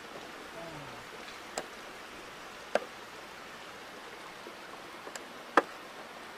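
A few sharp clicks of footsteps on a rocky trail, scattered unevenly over a steady hiss, the loudest near the end.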